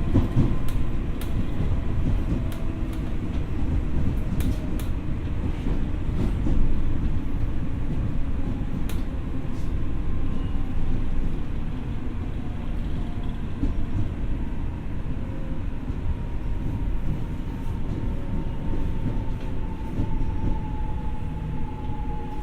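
Ex-Tokyo Metro 6000 series electric commuter train running, heard from inside the car: a steady rumble of wheels on track with scattered sharp clicks in the first few seconds. A faint motor whine sinks slightly in pitch near the end.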